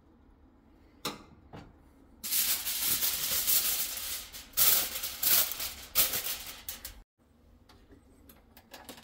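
Aluminium foil crinkling and rustling for about five seconds as a sheet is shaped into a tent over a roasting turkey in its pan, with a sharp click shortly before it starts.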